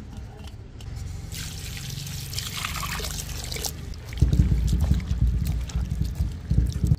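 Water trickling and splashing while cut vegetables are washed. A hiss of running water comes first, then a louder, lower, uneven splashing from about four seconds in.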